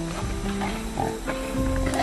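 Background music of held notes changing pitch every fraction of a second over a bass line, with short calls from a wild boar piglet mixed in.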